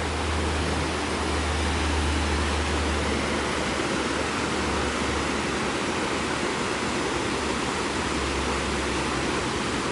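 Steady rushing of a mountain river and its waterfalls: an even, unbroken hiss of water with a low rumble underneath.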